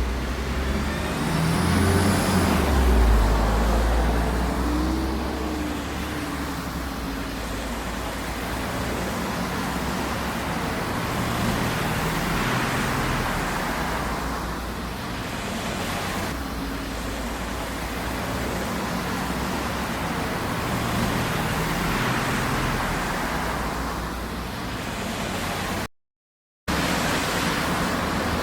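Motor vehicle engine running steadily, cut off to dead silence for under a second near the end.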